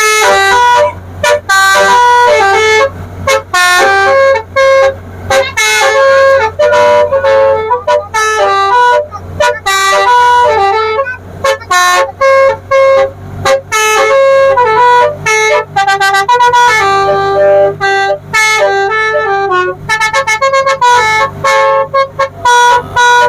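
Telolet basuri multi-tone musical horn playing a fast melody of short stepped notes, loud and continuous, over a steady low hum.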